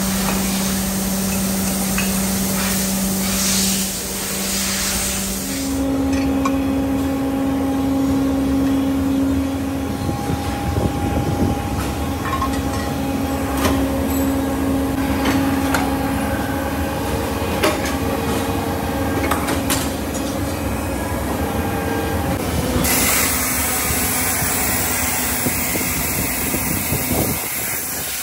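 Aluminium die-casting shop machinery running with a steady low hum, a hiss and scattered metal knocks and clanks. The hum steps up in pitch about six seconds in, and the hiss turns brighter near the end.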